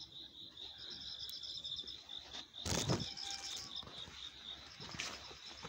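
Insects chirping in a fast, even pulse. About three seconds in comes a brief, louder rustle.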